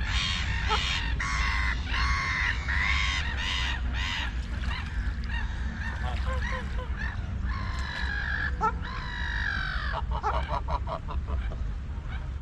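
Waterfowl calling: a steady run of short, pitched calls, one after another, with a quick series of clicks about ten seconds in, over a low rumble.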